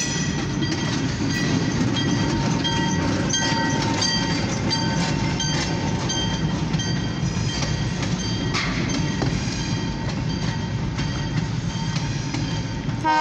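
Short freight train, a diesel switcher locomotive followed by covered grain hopper cars, rolling past at a grade crossing with a steady rumble and wheels clicking over the rail joints, heard from inside a car.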